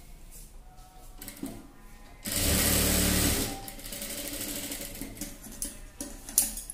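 Industrial lockstitch sewing machine running in one short burst of about a second and a half, a little after two seconds in, sewing the dart near the armhole of a blouse front piece. Fabric being handled and small clicks before and after.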